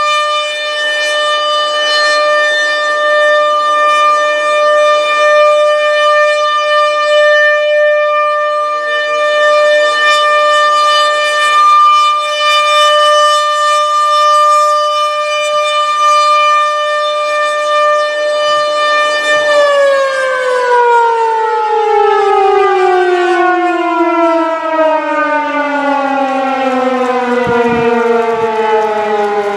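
ASC RM-130 rotating outdoor warning siren sounding its steady alert tone of about 600 Hz, heard from inside a car. About twenty seconds in, the steady tone ends and the siren winds down at the close of its alert cycle, its pitch falling steadily as the rotor slows.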